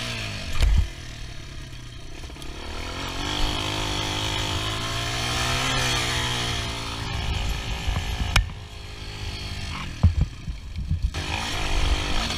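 ATV engine running under throttle while riding over dirt. It revs up over a few seconds, then drops back, with a few short low thumps along the way.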